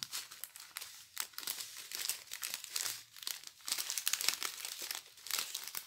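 Small clear plastic bags of diamond-painting drills crinkling in the hands as they are handled one after another: a dense, continual run of crackles.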